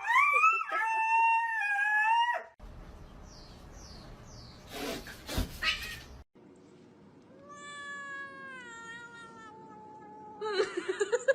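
Cats meowing: one long, high, drawn-out meow, then a noisy stretch with a couple of knocks, then a second long meow that slowly falls in pitch. A short rising call comes near the end.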